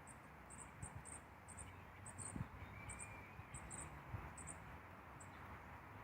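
Faint cricket chirping: short, high chirps, often in pairs, coming once or twice a second over a soft, steady outdoor hiss.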